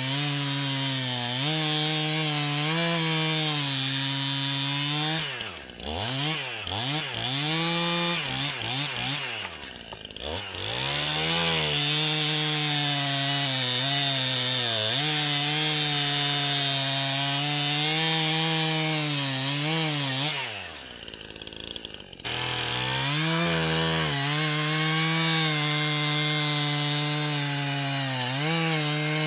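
Stihl MS 271 Farm Boss two-stroke chainsaw running at full throttle, cutting aspen into rounds. The engine falls back and revs up again about five seconds in and about ten seconds in, then drops toward idle for a moment around twenty-one seconds before revving back up for the next cut.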